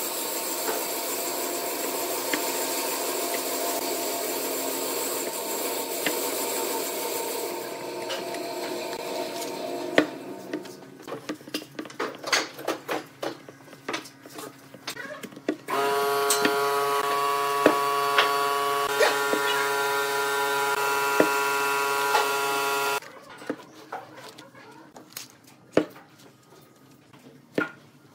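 Workshop sounds: a machine runs steadily for the first ten seconds or so, then comes a spell of scattered clicks and knocks as wooden blocks are handled and glue is spread. A second motor hums steadily with a clear tone for several seconds, and sparse knocks follow near the end.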